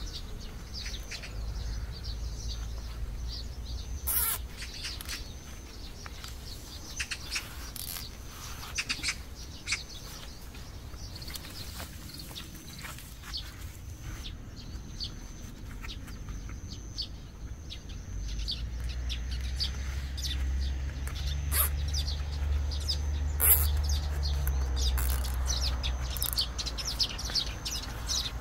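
Small birds chirping in scattered short calls, with the crackle and rustle of dry garlic stalks being handled and bundled. A low rumble comes up about two-thirds of the way through and fades near the end.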